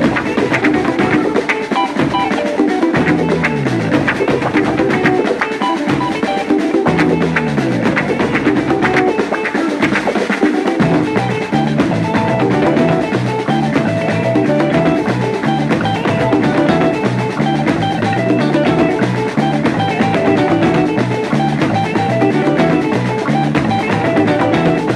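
Instrumental break of a samba song, with guitar, drum kit and percussion. Falling low bass notes repeat for the first ten seconds or so, then the bass settles into a steady stepping line.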